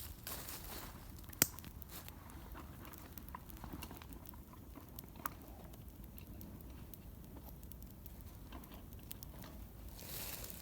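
Wood campfire crackling, with scattered small snaps and two sharper pops, the loudest about a second and a half in and another about five seconds in, over a low steady rumble.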